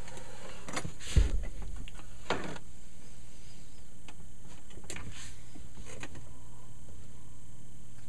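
Steady hum of the Ampex 601 tape transport running. Handling knocks sit on top, with a heavy thump about a second in as the transport is gripped and moved.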